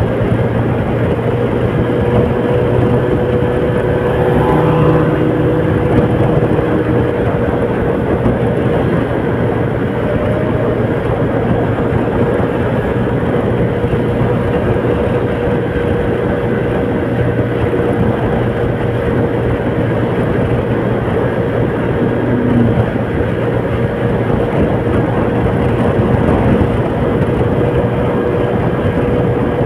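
A vehicle on the move: a steady engine hum holding one constant pitch under a dense, even hiss of road noise.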